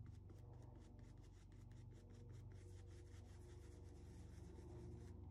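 Flat paintbrush stroking craft paint through a plastic stencil onto a fabric apron: faint, quick rubbing strokes, about six a second.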